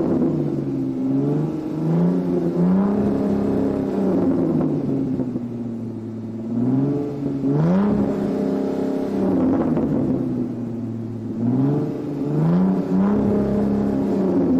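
Car engine being revved repeatedly: from a steady idle the pitch climbs quickly several times, then sinks back slowly to idle.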